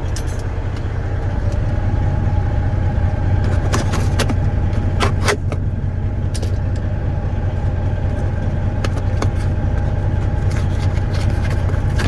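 Heavy truck's diesel engine idling steadily, a deep drone heard inside the cab, with scattered small metallic clicks and rattles from hands and tools working on the dash speaker.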